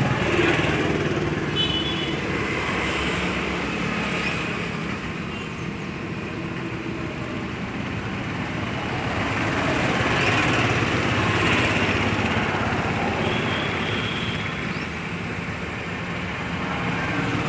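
Road traffic noise: vehicles passing with a continuous rumble that swells and fades, loudest around the middle.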